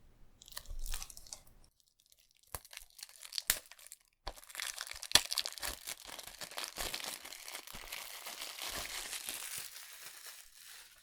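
A few clicks and taps from handling a plastic Blu-ray case, then from about four seconds in a long stretch of plastic wrapping crinkling and tearing, fading near the end.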